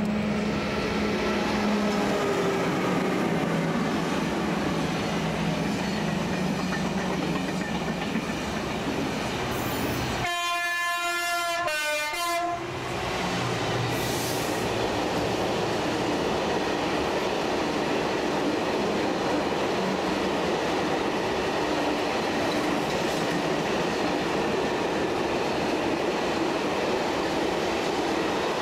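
A Class 373 Eurostar train running past with a steady rushing rumble. About ten seconds in a train horn sounds for about two seconds, then a long freight train of bogie tank wagons rumbles past on the rails.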